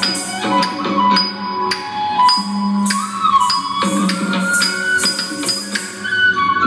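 Carnatic classical music: a thillana in raga Brindavani set to Adi tala, with a melody line over brisk, closely spaced percussion strokes.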